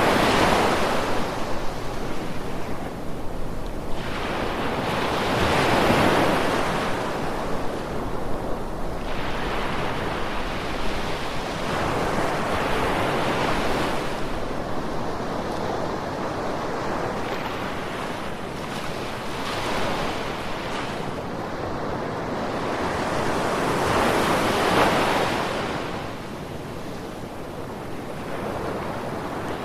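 Ocean waves breaking and washing on a shore, with a steady hiss of surf and wind between them; louder wave crashes swell up about every six seconds, the biggest near the start, around six seconds in and near the end.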